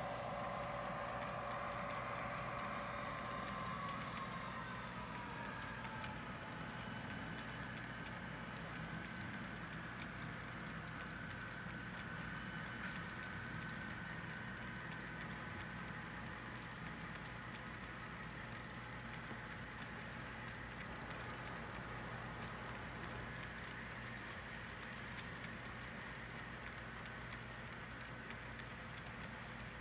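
HO scale model freight train running, a steady low hum with engine-like tones whose pitch drops about five seconds in, then holds steady.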